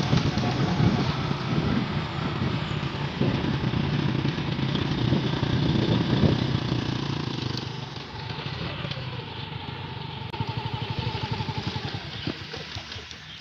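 Honda motorcycle engine running while riding along a dirt track, with wind noise over it; the sound drops noticeably about eight seconds in.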